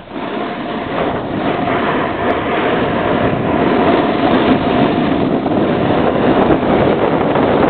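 Snowboard sliding and scraping over warm spring snow, a loud steady rough hiss that dips briefly at the start, with wind buffeting the microphone.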